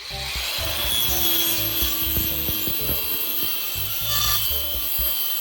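Angle grinder cutting through wood: a continuous high whine with the blade rasping through the wood, with a few knocks.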